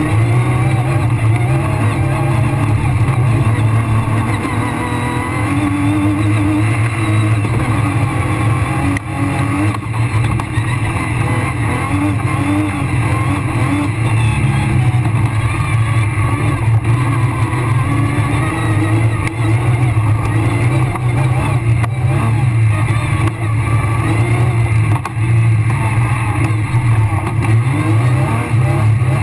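Rally car engine driven hard, heard from inside the cockpit, with the revs rising and falling as the car is driven along the stage, and a couple of short dips in loudness.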